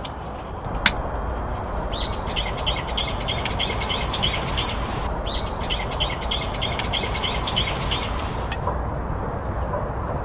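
A bird singing two runs of quick, evenly repeated high notes, about four a second, over steady low background noise. A single sharp click sounds about a second in.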